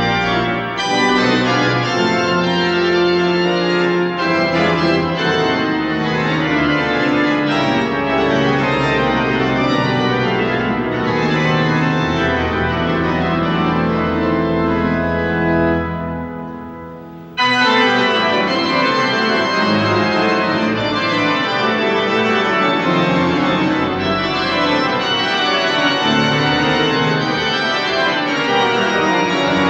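Organ music: sustained, dense chords of a film score. It fades down just past halfway, then comes back in abruptly.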